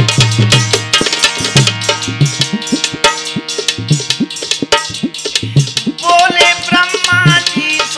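Instrumental folk music interlude: a hand drum plays a fast rhythm with low strokes that bend in pitch, and a melody instrument joins about six seconds in.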